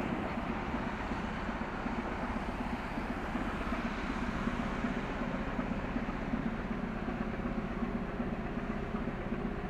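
Steady low drone of a passing container ship, its engine hum over an even rush of water from the bow wave.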